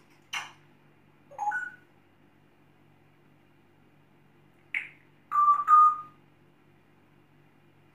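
African grey parrot making a few clicks and short whistled beeps. The loudest are two level beeps one after the other, about five and a half seconds in.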